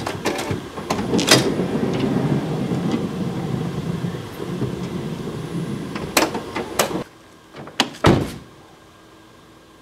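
A minivan's power sliding door closes on its own: its motor runs steadily for about seven seconds, with clicks as it starts and a latch clunk as it shuts near the end. After that come two short, sharp knocks.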